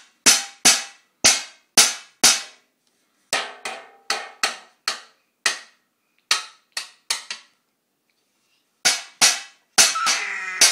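Sharp, bright strikes of small children beating kitchen bowls and plates as toy drums: steady at about two a second at first, then uneven, with a pause of a second or so past the middle.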